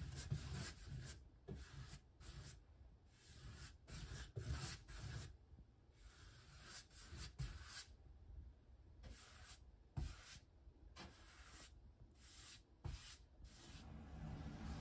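Paintbrush bristles swept across the cabinet floor: a series of short scratchy brush strokes with brief pauses between them.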